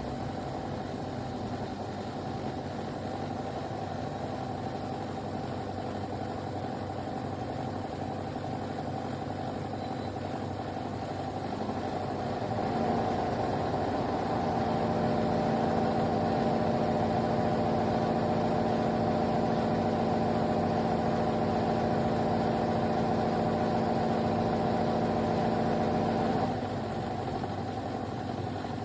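De'Longhi Pinguino PAC EM82 portable air conditioner running with a steady hum made of several tones. It gets louder about twelve seconds in and drops back down near the end.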